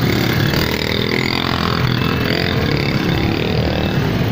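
Small motorcycle engines running at low speed as the bikes edge through a dense crowd, with the crowd's voices mixed in.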